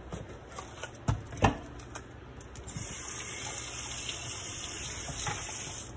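Two knocks, then a kitchen tap running steadily for about three seconds before being shut off near the end.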